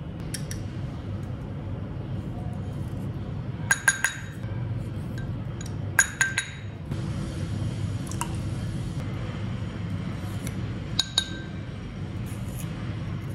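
A spoon tapping against a small glass bowl, clinking in three short groups of two or three taps, each with a brief glassy ring, over a steady low hum.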